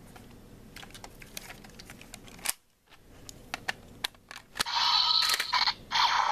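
Plastic clicks of a Gokai Blue ranger key being slotted and turned in a Gokaiger Mobirates toy phone, then, about five seconds in, the toy's speaker playing a loud electronic sound effect.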